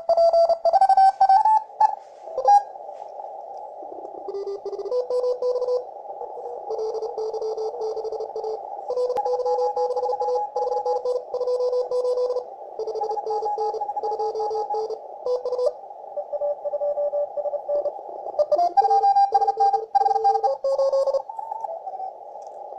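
A FlexRadio FLEX-1500 shortwave receiver on the 20-metre CW band, heard through a narrow filter: a steady band of hiss with several Morse code signals beeping at different pitches as the receiver is tuned down through the band. The Morse signals are loudest in the first two seconds and again near the end. The hiss is the urban noise picked up by a vertical antenna in a city centre.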